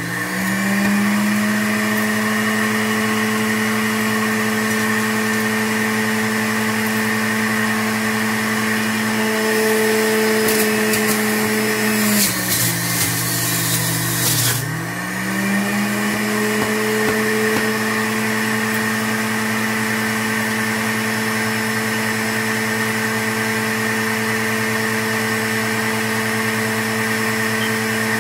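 Power XL self-cleaning juicer's motor running with a steady whine. Near the start and twice around halfway it slows with a grinding hiss as apple is pressed down the feed chute, then picks back up to speed.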